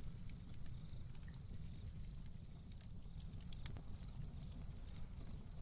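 Campfire crackling faintly: scattered sharp pops and snaps over a low steady rumble.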